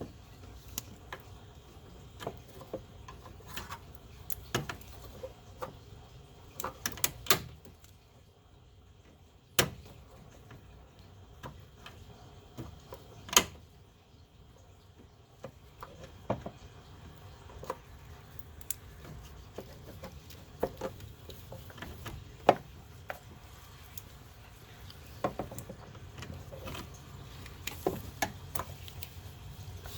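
Irregular light clicks and taps of hand tools and metal parts being worked on the small lines of a car radiator, with a few sharper knocks.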